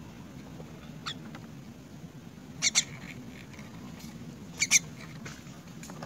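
A young myna being hand-fed makes two quick pairs of short, sharp, high-pitched sounds about two seconds apart, after a faint click about a second in, over a steady low hum.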